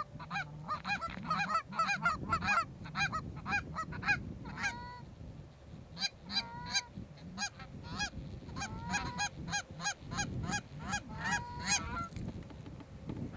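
Canada goose calling: rapid, overlapping honks and clucks, several a second. They thin out briefly around the middle, come back with a few longer drawn-out notes, and taper off near the end.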